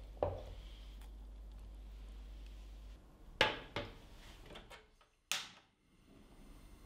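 Copper saucepan knocking as it is handled, then two metallic clanks as it is set on a gas hob's pan support. About five seconds in comes the click and whoosh of the gas burner lighting under it.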